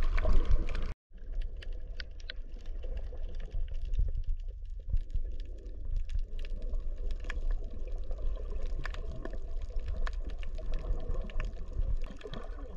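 Underwater sound picked up by a camera while snorkelling: a low, muffled rumble of water with a steady scatter of small clicks and crackles.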